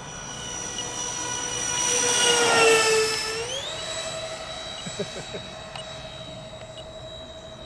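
The twin 70 mm electric ducted fans of an RC Boeing 737 MAX 8 model whine as it flies past. The whine grows louder and dips slightly in pitch about three seconds in, then jumps to a higher, steady pitch that holds as the plane climbs away.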